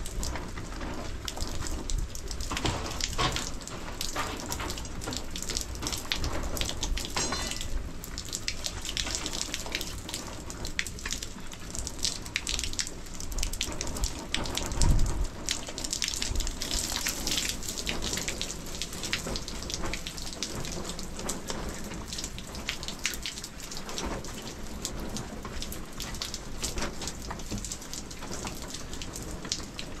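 Steady rain falling, with many small drops pattering and dripping on surfaces, and a single dull thump about halfway through.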